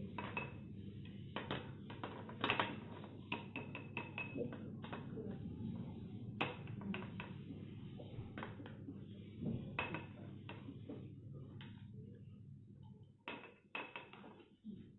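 Metal spoon clinking and scraping against a glass bowl and a glass tumbler as cream is scooped out and spooned into the glass. It is an irregular run of light clinks, some ringing briefly.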